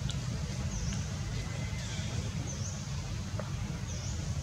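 Steady low outdoor rumble with an even hiss, and a short high chirp, dipping then rising, repeating three times about a second and a half apart.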